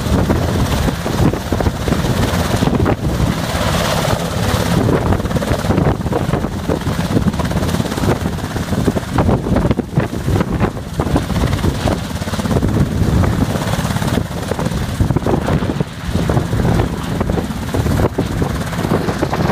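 Large coastguard rescue helicopter's rotors and engines running loud and steady as it settles from a low hover onto the ground, with rotor downwash buffeting the microphone.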